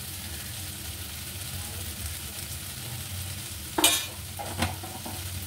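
Onions and tomatoes sizzling steadily in an aluminium kadai on a gas burner. About four seconds in, a loud sharp knock and then a smaller one come as turmeric powder is tipped into the pan.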